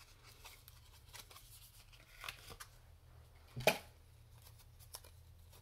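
Faint clicks and rustling of a single pressed eyeshadow's packaging being handled and opened, with a sharper snap a little past the middle.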